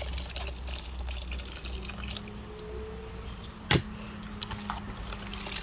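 Liquid dripping and trickling, with scattered small ticks and one sharp knock a little past halfway.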